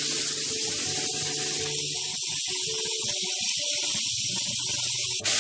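Chopped onions and tomatoes frying in hot oil in a pan, giving a steady sizzling hiss.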